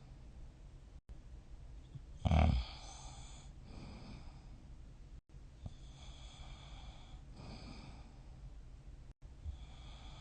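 A sleeping person snoring: one short, loud snore about two seconds in, then quieter breathing in and out with a faint rasp. The sound cuts out completely for an instant three times.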